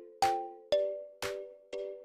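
Background music: a steady beat of about two sharp strokes a second, alternating stronger and weaker, over held tones.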